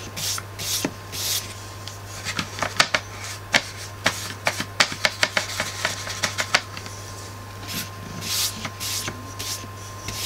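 A wide flat paintbrush scrubbing dark grey acrylic paint over a painted board in short strokes near the start and again near the end. In between comes a run of sharp clicks and taps as the brush is worked at the paint palette. A steady low hum runs underneath.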